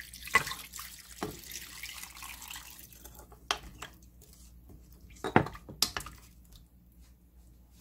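Broth being poured into a stainless steel pot of sliced radish and chili paste, splashing for about the first three seconds. After that, a wooden spoon stirs the soup, with a few sharp knocks against the pot.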